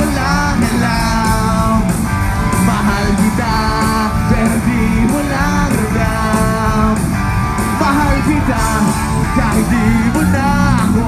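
Live rock band playing through a concert sound system, heard from the crowd: electric guitars over a steady drum beat, with melodic lines that bend in pitch.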